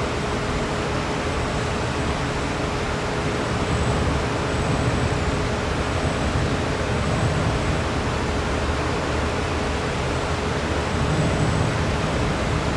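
Bank of electric wind-generating fans running: a steady rushing noise with a constant mid-pitched hum.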